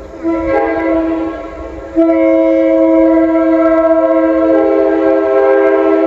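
Multi-chime locomotive air horn sounding a chord: a shorter blast, then a long one from about two seconds in that holds until near the end.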